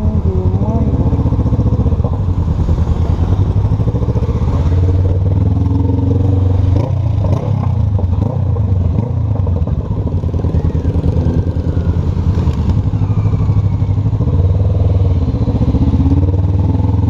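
Honda CB500F's parallel-twin engine running at low revs as the motorcycle is ridden slowly, heard from the rider's seat, its note wavering a little with the throttle.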